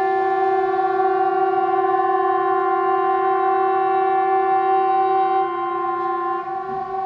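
Swedish 'Hesa Fredrik' outdoor civil-defence warning siren sounding during a test: one long, steady, hoarse tone with no rise or fall in pitch. It weakens a little about five and a half seconds in.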